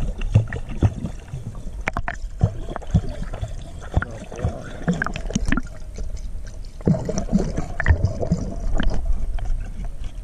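Pool water sloshing and gurgling around a camera held at the surface as a dog swims and paddles, with irregular splashes and pops, the sound going muffled whenever the camera dips under.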